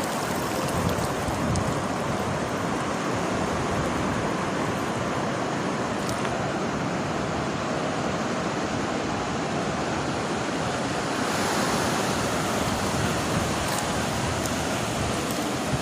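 Sea surf: a steady rushing wash of waves, growing slightly louder about two-thirds of the way through.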